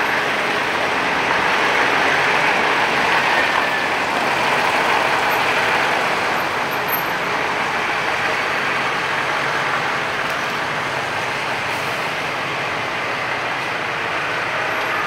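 Steady street traffic noise, with a heavy military truck's engine running close by among cars, a bus and a tram.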